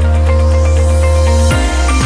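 Electronic background music: a sustained bass and synth chord with a rising high sweep, changing notes about one and a half seconds in.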